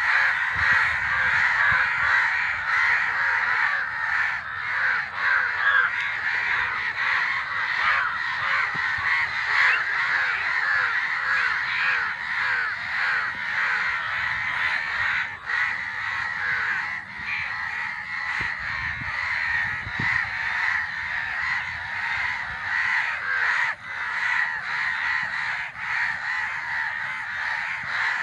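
A large flock of crows cawing all at once, many overlapping calls forming a continuous din with no pauses.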